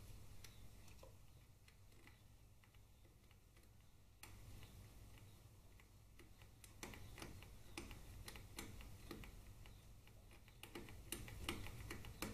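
Faint, irregular small clicks and ticks of hands handling wiring and a plastic connector clip, growing more frequent about seven seconds in, over a low steady hum.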